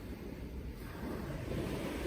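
Rushing water as a steady hiss, a river or heavy rain, growing a little louder about one and a half seconds in.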